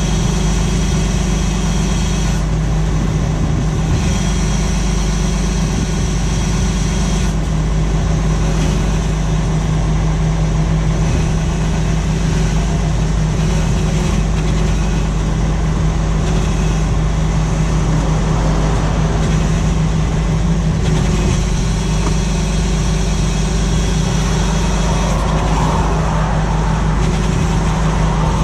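Tractor engine running steadily under load while pulling a plough, a continuous low hum that holds even.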